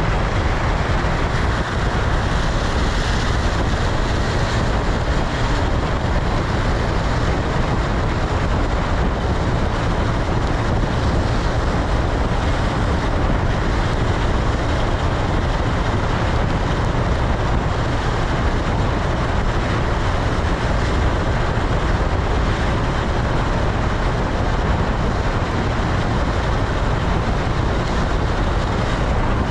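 Steady rush of wind on the microphone mixed with tyre and engine noise from a motorcycle riding along a wet road.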